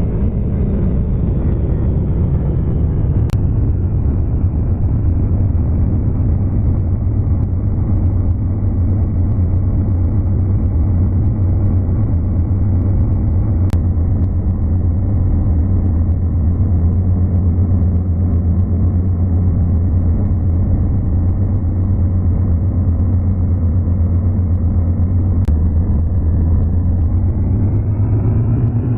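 Electronically processed logo audio, slowed and filtered into a steady low rumbling drone. It dulls over the first few seconds and brightens again near the end, with faint clicks at a few edit points.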